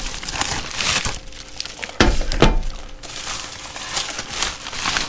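Packaging of a replacement wrench being handled, crinkling and rustling, with a couple of sharp knocks or clinks about two seconds in.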